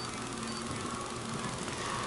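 A field of USRA Stock Cars running laps on a dirt oval, heard from a distance as a steady drone of engines that builds slightly as the cars come around.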